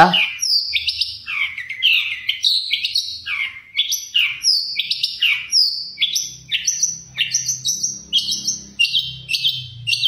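Caged long-tailed shrike (cendet) singing a run of loud whistled notes, each sweeping downward, about two a second. About halfway through it changes to quicker, choppier notes.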